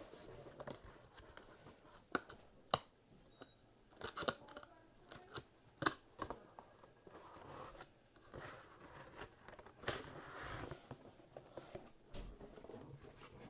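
Cardboard box being folded by hand: irregular sharp clicks from the creasing flaps, with soft rustling between them.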